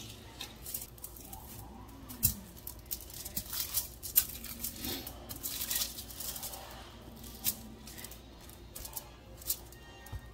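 Aluminium foil crinkling and crackling under hands and dough as scone dough is turned out of a bowl and patted into a round on a foil-lined baking sheet, in many short crackles, with a soft knock about two seconds in.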